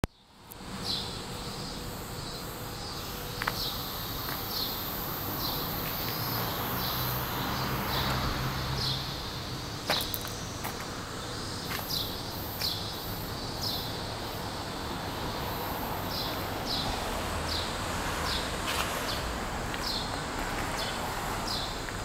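Outdoor city ambience: a steady low hum of distant traffic and city noise, a thin high-pitched insect hiss, and short descending chirps repeating every second or so. A few sharp knocks stand out, one about ten seconds in.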